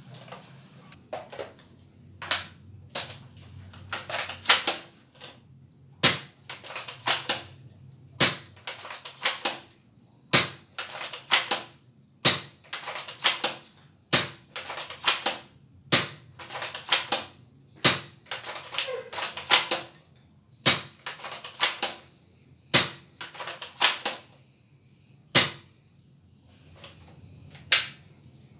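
WELL MB4410 spring-powered bolt-action airsoft sniper rifle being fired over and over, about a dozen sharp shots roughly two seconds apart. Each shot is followed by a quick run of clicks as the bolt is worked to cock the spring.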